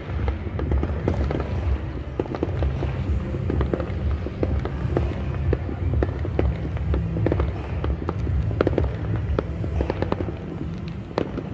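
Fireworks going off without pause: a dense run of sharp crackling pops over a steady low rumble of booms.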